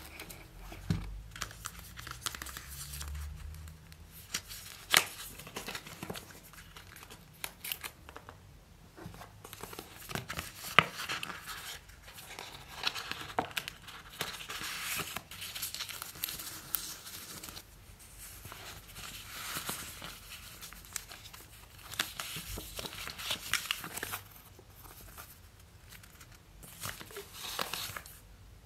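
iPhone 4 packaging being opened: plastic and paper crinkling and tearing, with irregular rustling and scattered sharp clicks, the loudest about five and eleven seconds in.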